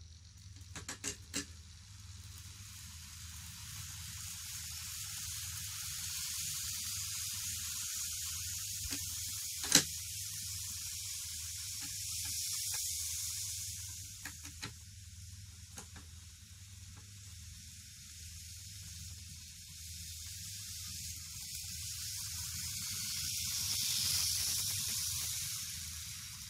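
N gauge model train, a KATO EF57 electric locomotive pulling fifteen blue-train coaches, running on sectional track: a high, steady hiss of the motor and metal wheels on the rails that swells twice as the train passes close and then fades. A few small clicks, and one sharp click about ten seconds in.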